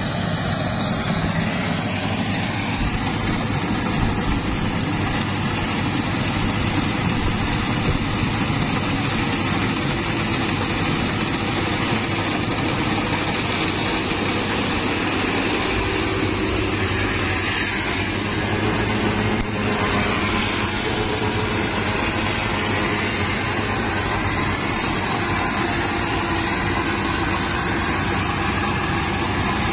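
Rice combine harvester running in a ripe paddy crop, cutting and threshing as it goes, with a steady machine drone.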